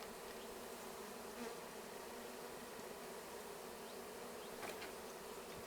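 Honeybees buzzing steadily around an open hive as a new colony is installed, with a couple of faint taps.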